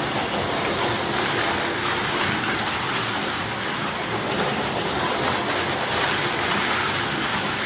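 1/43 scale Artin slot cars racing around a four-lane plastic track: a steady whirring and rattling of their small electric motors and wheels in the slots.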